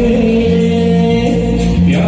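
Music from a Hindi film song, a passage without sung words: several long held notes over a steady bass line.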